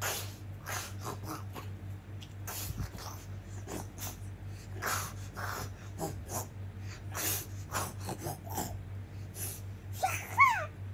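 A young girl making breathy puffing and snorting mouth noises as she plays the toy wolf eating the other animals, mixed with the rustle of plush toys waved close to the microphone. Near the end a short high squeal falls in pitch.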